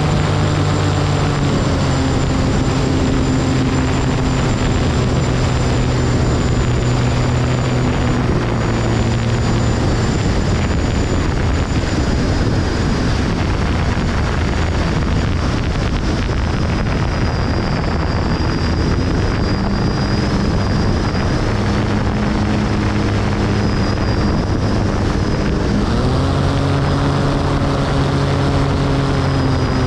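Light aircraft's propeller engine droning steadily in flight over constant wind noise. The engine note drops a little about a second and a half in, sinks under the wind through the middle, and rises again near the end as power comes back up.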